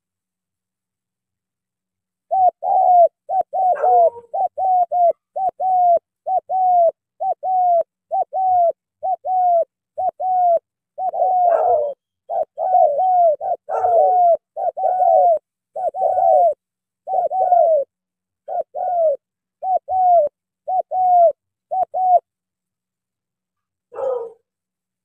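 Spotted dove cooing: a long run of short, arched coos, about one and a half a second, starting a couple of seconds in and stopping a few seconds before the end. One separate, rougher note comes about a second before the end.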